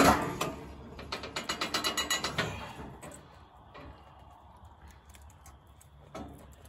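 Ratchet of a calf puller clicking fast in two runs, taking up the chain to draw a calf during a hard birth, with a sharp metal clank at the start.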